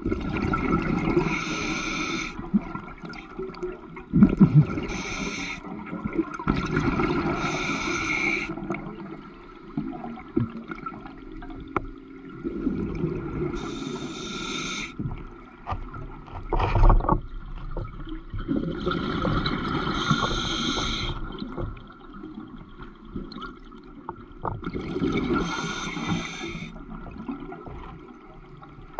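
Scuba diver breathing through a regulator underwater: bursts of exhaled bubbles gurgling past the camera about every five to six seconds, over a steady low rumble, with one heavier thump about two thirds of the way in.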